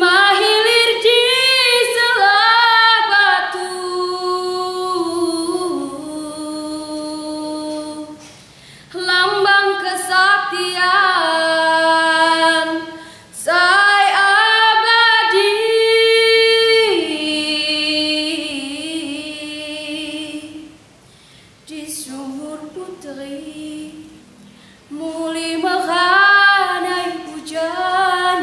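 A young woman's solo voice singing a Lampung regional song, in long phrases of held notes that slide from pitch to pitch. There are short pauses for breath, and a softer phrase past the middle.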